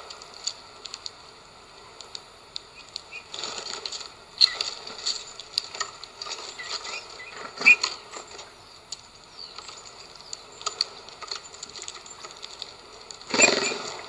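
Eurasian bullfinches feeding on a tray of sunflower seeds: scattered light clicks and taps of beaks and seed husks, with a few short rustling bursts, the loudest near the end.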